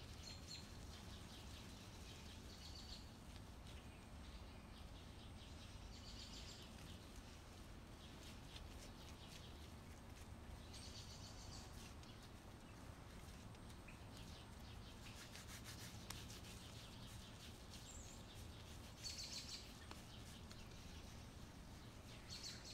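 Near silence: room tone with a faint, brief high chirping every few seconds.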